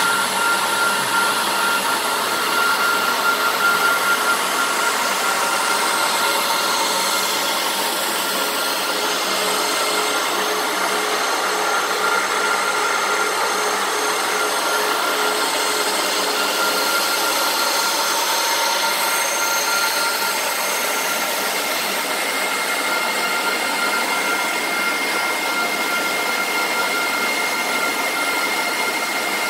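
Spondoolies SP36 X11 ASIC miner running under full hashing load, drawing about 2.2 kW. Its cooling fans give a loud, steady rush of air with a few steady whining tones through it.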